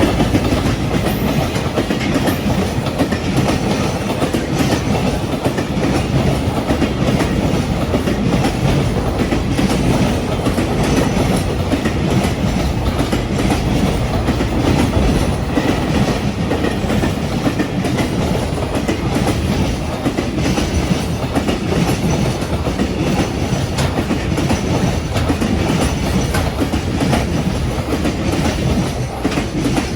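Freight train rolling past at close range, its wheels running loud and steady over the rails, easing off slightly right at the end.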